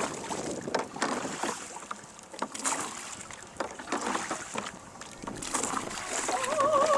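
A rowing boat being rowed: oars knocking in the rowlocks and splashing in the water at irregular intervals, with wind on the microphone. Near the end an operatic singing voice comes in.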